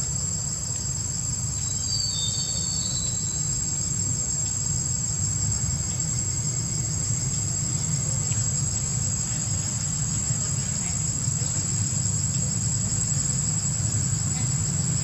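Steady, high-pitched chorus of forest insects, unbroken throughout, over a steady low rumble. A few short high chirps come about two seconds in.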